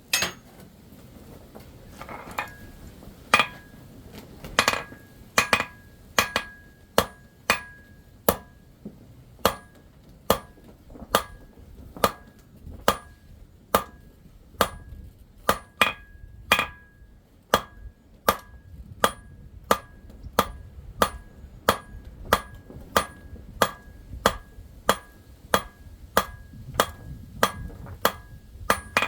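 Hand hammer striking metal in a steady train of blows, about one and a half a second, each leaving a short high ring: silver being forged by hand.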